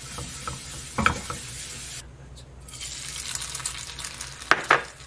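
Beaten egg white sizzling in a nonstick frying pan over low heat as it is spread into a thin sheet with tongs. A few sharp clicks come about a second in and again near the end, and the sizzle drops out briefly about two seconds in.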